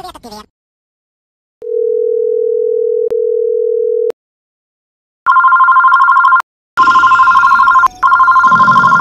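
A steady single electronic tone holds for about two and a half seconds. After a pause, a telephone starts ringing: an electronic two-note warbling ring that repeats in bursts.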